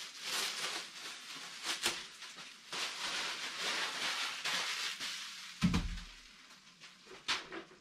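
Thin clear plastic bag rustling and crinkling as it is pulled off a large RC truck and crumpled up by hand. A single dull thump comes about five and a half seconds in, followed by a few faint clicks.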